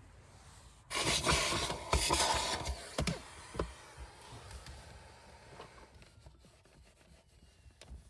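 Cleaning inside a car: a loud rubbing and wiping noise about a second in, lasting about two seconds. A few knocks of things being handled follow, then fainter scattered clicks.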